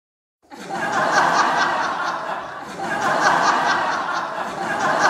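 People laughing, a dense stretch of laughter in quick repeated pulses that starts about half a second in, after a moment of silence.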